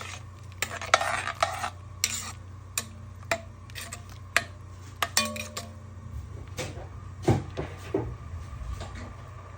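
A metal spoon clinking and scraping against a cooking pot while stirring: a string of sharp, irregular clinks with short scrapes between them.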